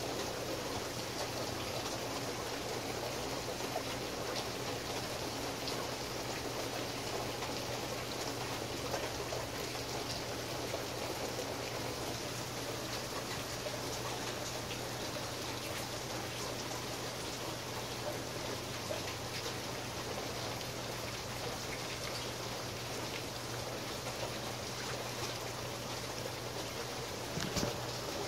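Thunderstorm rain falling steadily, with scattered drops tapping close by and one sharper tap near the end.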